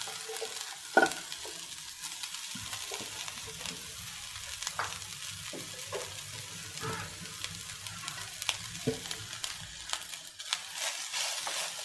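Shredded cooked chicken frying in an onion and spice masala in a nonstick pan, with a steady sizzle. Scattered scrapes and taps come from a wooden spatula stirring it.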